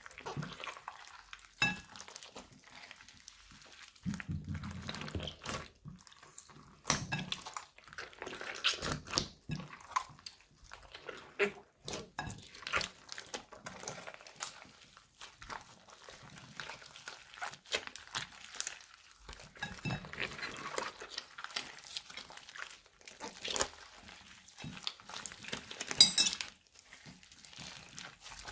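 Slime being squished and mixed by hand with crinkling plastic bags, making a string of irregular sticky clicks and squelches. One sharp, louder pop comes near the end.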